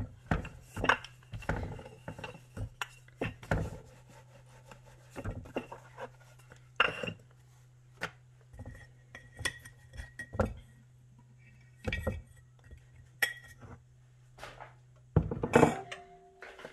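Wooden rolling pin knocking and rolling over dough on a wooden counter, with hands pressing and patting it flat: a run of uneven knocks and taps over a steady low hum. About fifteen seconds in the hum stops and a glass cup of flour knocks against the counter, ringing briefly.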